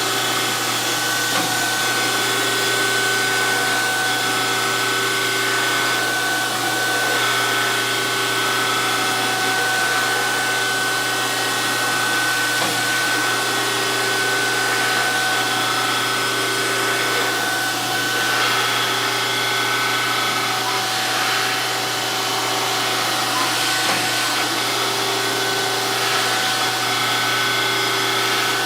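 DoAll 14-inch surface grinder running on a wet grind, its wheel spinning with a steady high tone over a constant hum while the table reciprocates under it, a tone coming and going with each pass about every two seconds.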